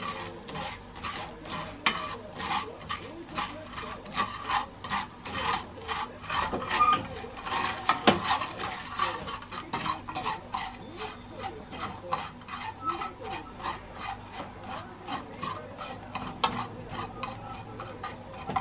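Dried baby sardines for gomame being stirred and scraped around a pan, a steady run of quick scraping strokes, a few each second, with one sharper knock of the utensil about eight seconds in.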